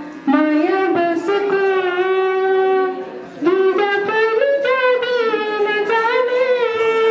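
A woman singing a slow, unaccompanied melody into a microphone, in long held notes with a short break about three seconds in, ending on a long held note.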